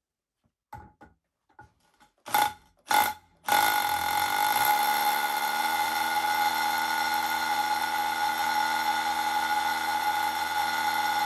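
Bosch UniversalHammer 18V cordless SDS-plus rotary hammer in drill-and-hammer mode boring into concrete: a few short bursts as the bit starts the hole, then from about three and a half seconds in a steady, continuous run of its pneumatic hammer mechanism as the bit goes through the concrete with ease.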